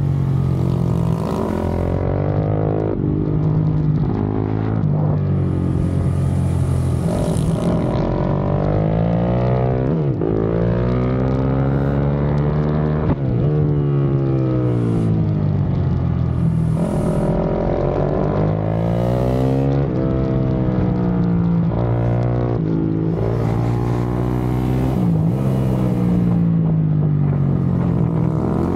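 KTM supermoto engine revving hard through the gears, heard from on board. Its pitch climbs and falls again and again, with quick drops at the shifts and longer falls when it slows for corners.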